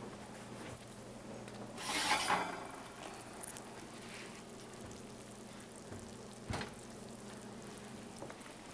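Oven door opened and a hot pan of baked meatloaf taken out: a short loud rush of noise about two seconds in, faint sizzling from the hot pan, and a sharp knock about six and a half seconds in as the oven door shuts.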